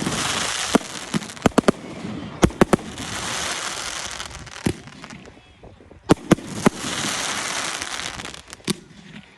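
Fireworks display: a string of sharp bangs from bursting shells, with long spells of dense crackling hiss between them.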